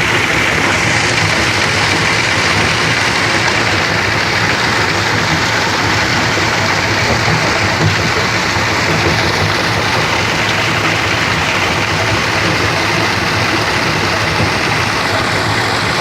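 Sand-grinding machine running steadily, its engine hum under a constant, even rushing noise.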